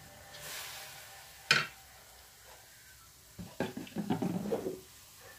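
Wooden spoon stirring diced pork in a stainless steel frying pan over a light sizzle. One sharp knock of the spoon on the pan comes about a second and a half in, and a run of scrapes and knocks follows about three and a half seconds in.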